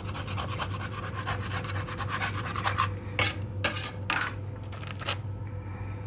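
Fat sizzling and crackling in a frying pan, fading out after about four seconds. Several sharp knocks and clatters of handling about three to five seconds in, over a steady low hum.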